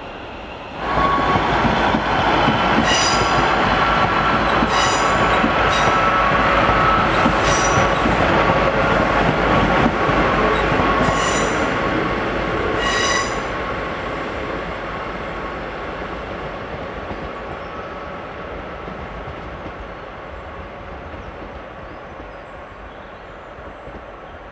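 A diesel multiple unit passenger train passes close and pulls away around a curve. It starts loud and suddenly about a second in, with repeated high shrieks of wheel flange squeal on the curved track over the first half. The train noise then fades steadily as it recedes.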